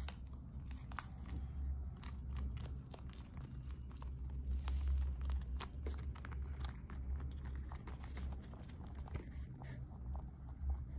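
Rabbit chewing a dried pumpkin leaf, a fast run of crisp crunches, thinning out near the end as the leaf is put down. A steady low hum sits underneath.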